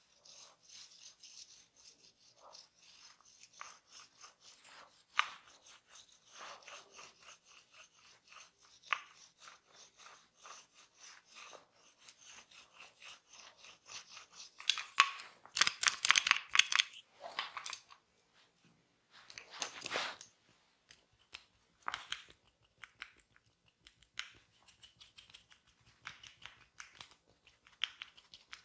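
Massage hands rubbing and scratching rapidly and continuously, a dry rasping sound, with one sharp click about five seconds in and a louder stretch of vigorous rubbing a little past the middle.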